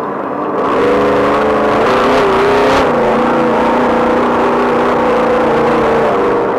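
Off-road race vehicle's engine running hard, its pitch rising and falling with the throttle, over a steady rush of road noise.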